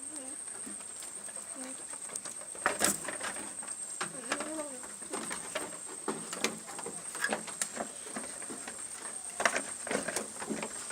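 Animal-shed ambience: a few short, low, arched animal calls among scattered knocks and taps, the sharpest about three seconds in and again near the end, over a steady high-pitched whine.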